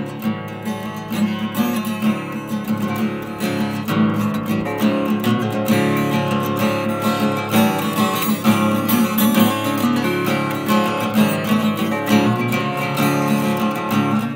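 Acoustic guitar in drop D tuning, played continuously with steady picked and strummed chords.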